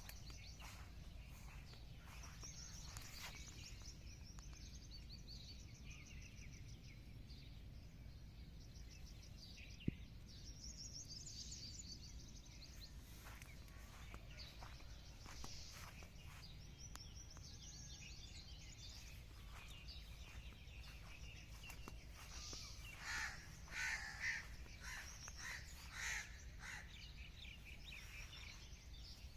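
Birds chirping and calling over steady low background noise, with a run of louder, harsher calls near the end and one sharp click about a third of the way in.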